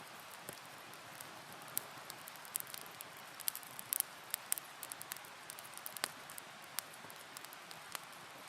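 Wood campfire crackling: scattered, irregular sharp pops and snaps over a soft, steady hiss.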